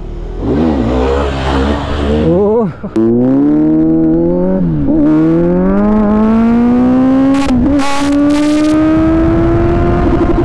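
Kawasaki Z900's inline-four engine accelerating hard through the gears. After a wavering note in the first couple of seconds, its rising note drops back at each upshift, about three, five and seven and a half seconds in.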